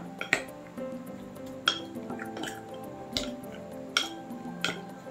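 A spoon clinking against a small glass bowl as raw chicken breast is stirred with spices, sharp clinks at irregular intervals of roughly a second. Background music plays throughout.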